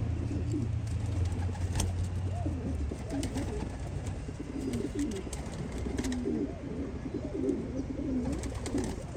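Homing pigeons cooing over and over, low wavering calls. A low steady hum underneath stops about three seconds in.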